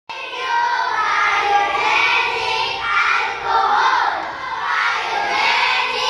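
A classroom full of young children shouting together in unison, cheering in several loud chanted phrases.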